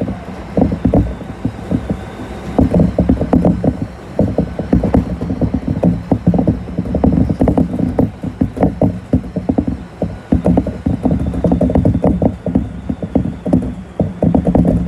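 Kintetsu electric train running, heard from inside the car: wheels clicking and knocking over the rails under a low running rumble, with the car body creaking.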